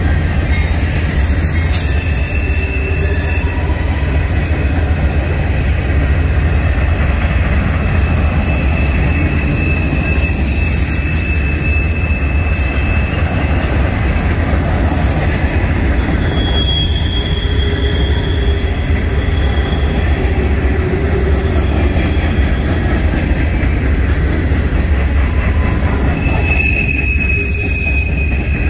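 Freight train rolling past: a steady rumble of the cars on the rails, with thin, high wheel squeals now and then.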